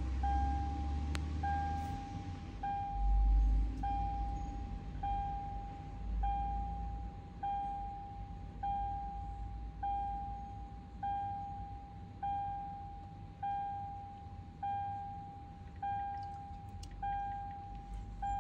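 Toyota Land Cruiser's warning chime repeating in the cabin, one ding about every 1.2 seconds, each fading out. A low rumble sits under the first few seconds.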